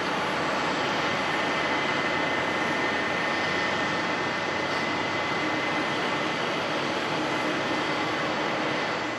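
Boeing 777-200ER jet engines running: an even rushing noise with a thin, steady high whine over it.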